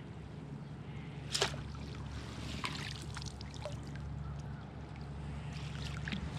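Water splashing and lapping against a kayak hull while a hooked Australian salmon is played beside it and a landing net goes into the water. One short sharper sound comes about a second and a half in, with a few light ticks after it.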